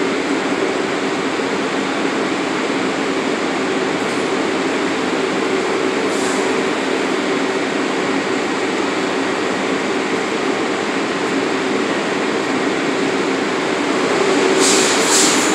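A New York City Subway R62A shuttle train standing at the platform with its doors open. Its on-board equipment gives a steady hum over a continuous rushing noise. A few short hisses come near the end.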